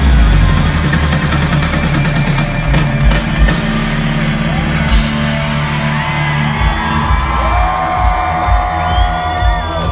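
Rock band playing live and loud through the PA: electric guitars, bass guitar and drum kit, with steady drum hits. From a little past halfway, crowd whoops and whistles rise over the music.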